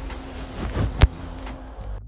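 A single sharp click about a second in, over a faint steady noise.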